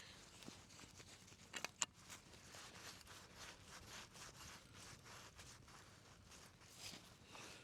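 Near silence with faint rustling and scraping, and a short louder scrape a little under two seconds in.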